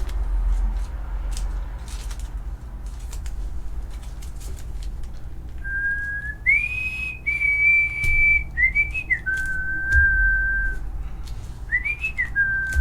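A person whistling a tune, starting about halfway in: held notes with quick slides up and down between them. Faint clicks sound throughout.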